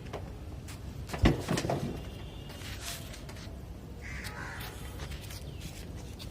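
Cawing bird calls a few times over a low steady rumble, with a sharp knock a little over a second in.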